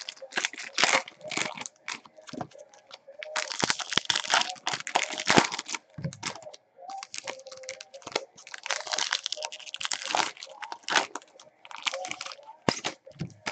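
Foil wrappers of Topps Platinum football card packs being torn open and crinkled by hand, in irregular crackling bursts.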